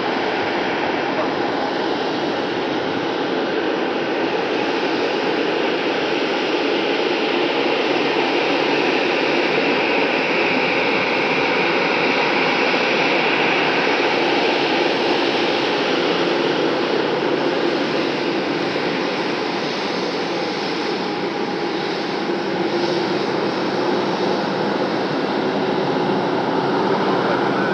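Airbus A320-214's CFM56-5B turbofan engines running at taxi power as the airliner rolls past, a steady jet rush that grows slightly louder and brighter around the middle.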